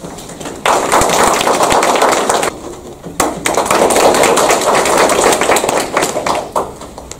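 A small audience clapping in two rounds: about two seconds of applause, a brief lull, then a second round of about three seconds that dies away near the end.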